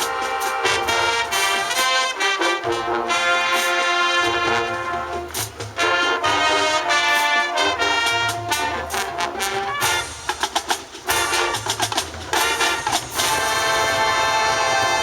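High school marching band playing: a loud brass section of trumpets and trombones over drums, in punchy sustained chords with a stretch of short staccato hits near the end.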